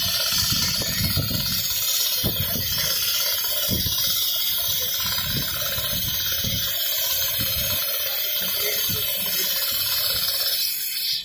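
Richpeace automatic non-stop sewing machine running and stitching through quilted material: a steady, loud hissing rush with irregular low thuds underneath, cutting off suddenly at the very end.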